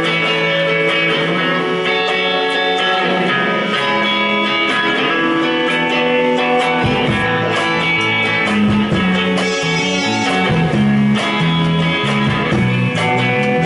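Live rock band playing the instrumental intro of a slow, sad song: electric guitars playing sustained notes, with the bass guitar coming in about seven seconds in.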